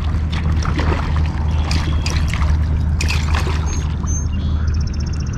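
Hooked northern pike thrashing and splashing at the water's surface as it is fought in close to the bank.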